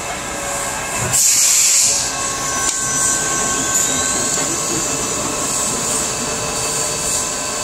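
Steady hum and drone of an Okuma CNC lathe standing with its power on, a few held tones running through it. About a second in comes a hiss lasting about a second.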